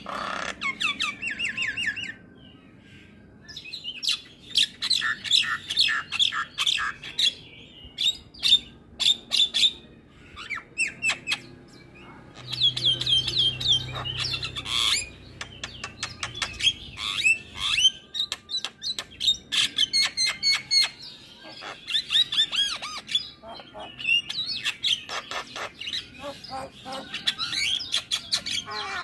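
Javan myna (jalak kebo) singing in long bursts of rapid chattering trills, harsh squawks and clicking notes, full of mimicked fills, broken by a few short pauses between phrases.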